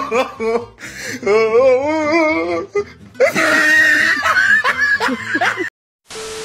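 A person laughing hard in wavering, wheezing bursts, with a loud hiss of water jetting from a road signpost during the second half. Near the end the sound cuts off, then a short burst of TV-static hiss with a steady beep plays.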